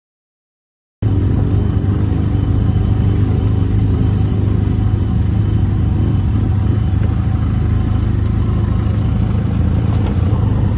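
Adventure motorcycle engine running steadily under the rider, heard from an onboard camera with wind rumble on the microphone, starting abruptly about a second in after silence.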